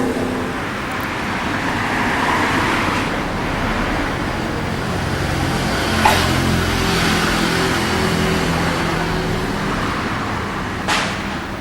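Steady street traffic with a running engine, and two sharp firecracker bangs, one about six seconds in and another near the end.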